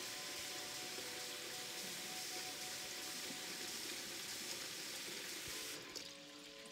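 Food frying in a hot pan: a steady, dense sizzle. About six seconds in it cuts off abruptly, leaving a quieter hiss with faint steady tones.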